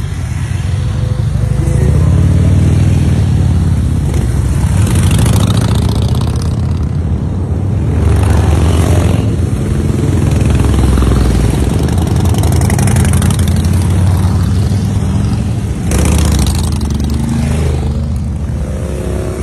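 Motorcycle convoy riding on a highway: many engines running together in a steady low rumble, with rushes of road and engine noise that swell and fade several times as bikes pass close by.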